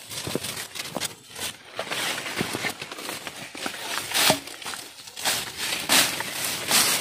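Irregular rustling and crackling of brush and leaves with footsteps, as someone pushes through undergrowth.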